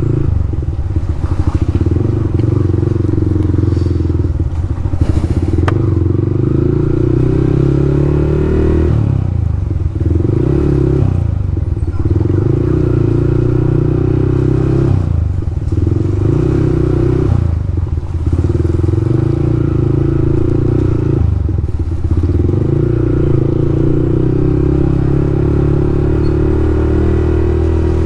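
Motorcycle engine running under way, its revs dropping off and climbing again about five times as the rider rolls off the throttle and accelerates.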